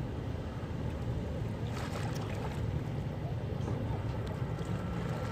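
Steady low rumble of wind on the microphone out on open water, with light splashing from kayak paddle strokes, a little clearer about two seconds in.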